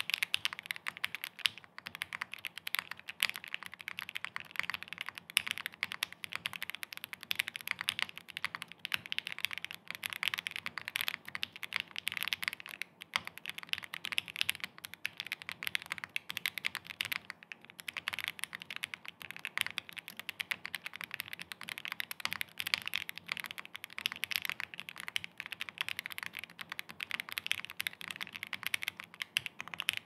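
Fast, continuous typing on a JRIS65 mechanical keyboard fitted with stock Gateron Vermilion Bird switches, a PC plate, plate and case foam, and PBT keycaps: a dense stream of crisp keystroke clacks, with one short pause a little past halfway.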